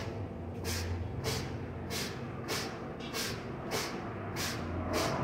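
Air-operated shop oil pump stroking steadily as gear oil flows through a metered dispensing gun into a truck differential: a short hiss of exhausting air about every 0.6 s over a low rumble.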